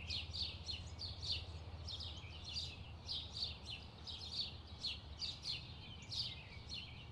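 Birds chirping: an unbroken run of short, high chirps that slide downward, several a second, over a faint low hum.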